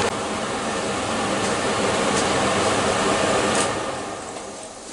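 Kitchen extractor hood fan running with a steady hum and hiss, over the sizzle of pork rinds frying in fat. The fan noise dies away near the end as the extractor is switched off.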